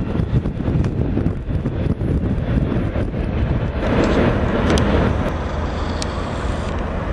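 Wind buffeting the microphone over the low rumble of a freight train in the distance, swelling briefly about four seconds in.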